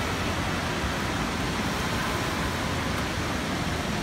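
Steady, even rush of water and hall din in an indoor water park, with the wave pool churning.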